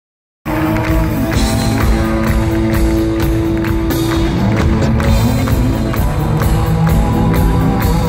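Live country-rock band playing: electric guitars over a steady drum beat, heard from the audience in a large hall.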